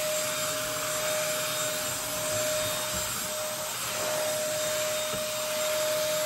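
Corded stick vacuum cleaner running with its brush head pushed over carpet: a steady rush of air with a steady whine that drops out briefly about three seconds in.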